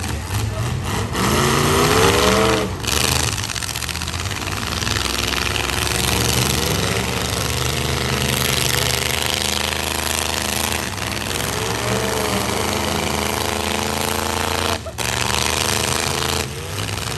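Demolition derby pickup trucks' engines running hard at high revs, loud and rough. An engine's pitch rises and falls as it revs about two seconds in, and again about twelve seconds in.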